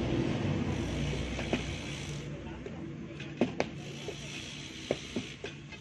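Digging tools (shovels, hoes and an iron bar) striking stony soil in about half a dozen sharp knocks, two close together about three and a half seconds in. A low engine hum fades out over the first two seconds.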